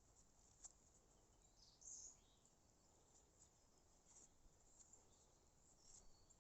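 Near silence: faint outdoor background with a few soft ticks and a brief faint high sound about two seconds in.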